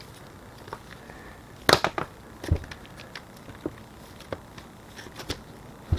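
Small screwdriver and fingers prying at the plastic retaining clip and bushing on a Ricoh copier developer unit's shaft end: scattered sharp clicks and taps, with a cluster of clicks a little under two seconds in and a duller knock about half a second later.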